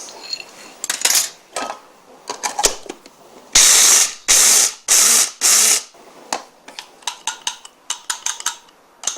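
Electric grinder grinding peanuts in four short pulses, about half a second each, starting about three and a half seconds in. Around them are many sharp clicks and rattles of peanuts and the grinder jar.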